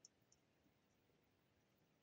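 Near silence: faint room tone, with two small, faint ticks within the first half second.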